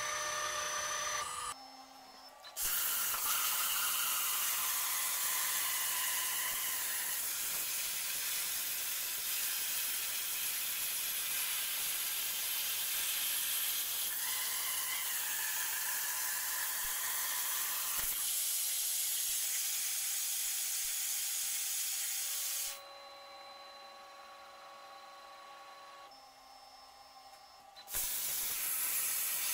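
CNC plasma cutter cutting 3 mm steel plate: the plasma arc and its air make a loud steady hiss. The hiss cuts out for about a second near the start and for about five seconds near the end, when only faint humming tones are left, then it starts again.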